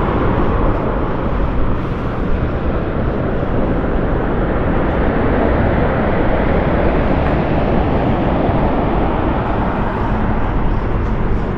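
Motorcycle being ridden: a steady mix of engine and wind noise on the microphone, strongest low down and without a clear pitch.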